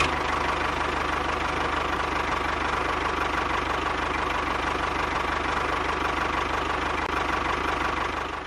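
An engine idling steadily with a rapid, even knocking clatter, dying away at the very end.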